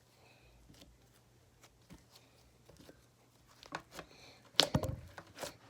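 Hands kneading and squeezing slime: scattered small sticky clicks, growing into a louder run of squishes and pops about four seconds in.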